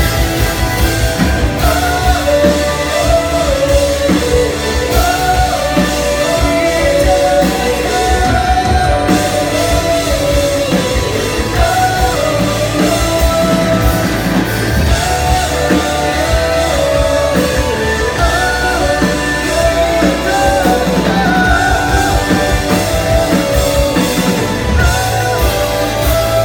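Live rock band playing loud: electric guitars and drums with a sung melody over them, recorded from within the audience.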